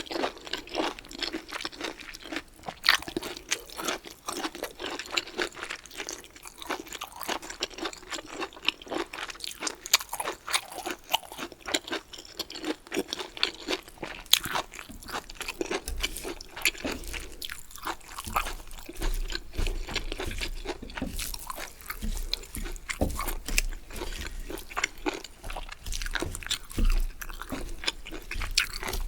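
Close-miked chewing of crunchy bamboo shoots: many crisp, irregular crunches and bites with wet chewing between them. A low rumble runs under the second half.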